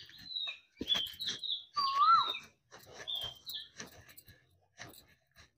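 A small bird chirping repeatedly: short high chirps that drop in pitch, and a louder rising-and-falling whistled call about two seconds in. Under it are soft clicks and knocks from flour dough being kneaded by hand.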